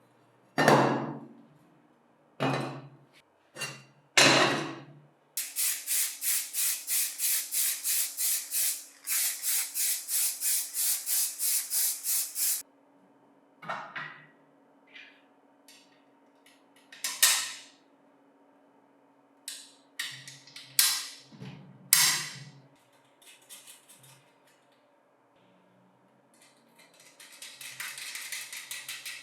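Hand-tool work in a workshop: a few sharp knocks, then a long run of quick, even rasping strokes at about four a second, like filing or sawing, with a short pause in the middle. More scattered knocks and scrapes follow.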